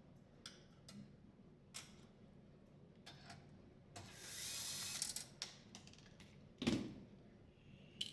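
Plastic dishwasher panel parts being worked loose by hand: scattered clicks and snaps, a scraping rustle about four seconds in, and a louder knock near the end.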